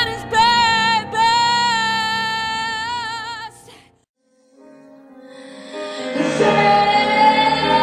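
A woman's singing voice holding a high sustained note with vibrato over accompaniment, fading out about four seconds in. After a brief silence, another recording fades in with her holding a second high note.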